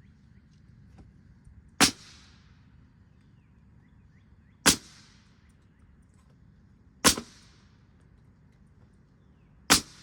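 Nails being driven into a wooden window header: four sharp shots, evenly spaced about two and a half seconds apart, each followed by a short fading hiss.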